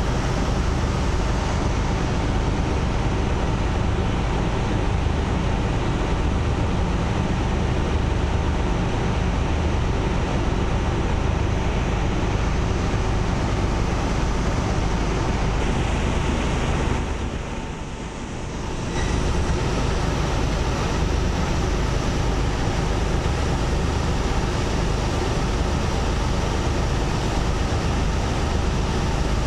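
Steady low rumble of boat engines under a rush of water and wind. The sound dips briefly about two-thirds of the way through.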